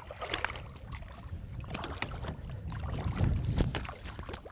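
Low steady rumble of wind and water around a bass boat, with a few short sharp sounds, as a hooked striped bass is played alongside toward the net.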